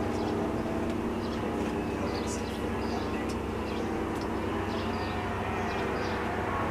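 Federal Signal STL-10 electromechanical siren in its long winddown after the blast, a steady low tone as the rotor coasts down.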